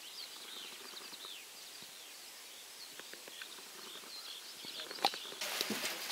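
Faint, scattered chirps of small songbirds over quiet outdoor background noise. Near the end a louder steady hiss comes in.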